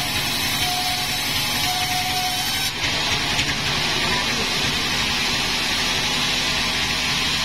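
Sawmill machinery running steadily, its sound changing abruptly about three seconds in.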